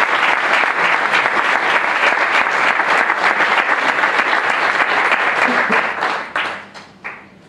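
Audience applause at the end of a talk: dense clapping from a seated crowd that thins out about six seconds in, ending with a few last claps.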